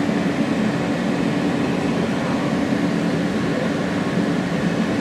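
Steady rumble and hum inside an R160 subway car, even throughout with no clicks or rhythm.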